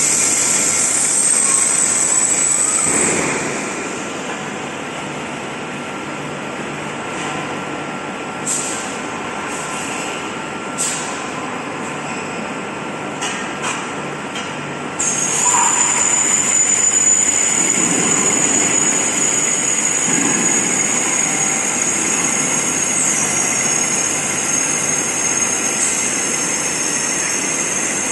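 LPG cylinder airtightness testing machine running: a steady high-pitched hiss and whistle of compressed air over machine hum, with a few sharp metal clanks from the steel cylinders in the middle. The hiss gets louder about halfway through.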